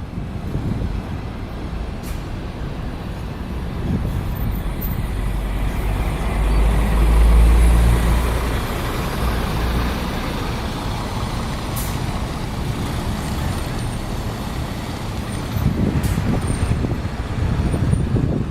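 Daewoo coach's diesel engine running with a low rumble that swells to its loudest about six to nine seconds in, then settles back.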